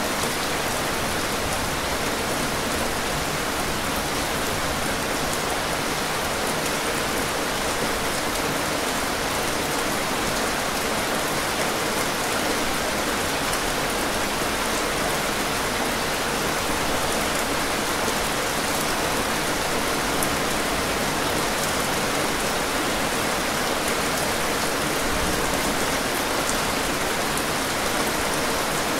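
Heavy rain falling steadily, a dense even hiss with faint pattering drops.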